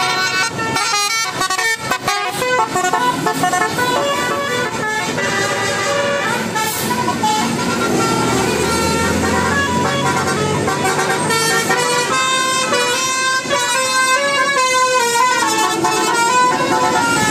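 Bus 'telolet' multi-tone air horn sounding a run of changing notes, several tones at once, the pitches jumping in quick steps.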